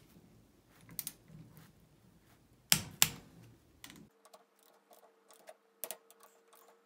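Clicks and ticks of a torque wrench tightening bracket bolts on a ZF6HP26 transmission valve body to 85 inch-pounds, with two loud, sharp clicks close together about three seconds in and softer ticks after.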